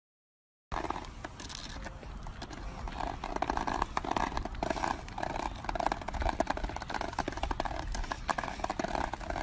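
Golden retriever walking along an asphalt road carrying its own leash: a quick, uneven run of clicks and taps on the road surface, starting about a second in.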